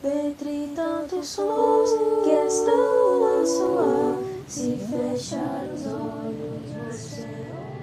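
Female a cappella singing, several voice lines held in harmony on long notes with soft 's' sounds; after about four seconds the singing thins out and fades.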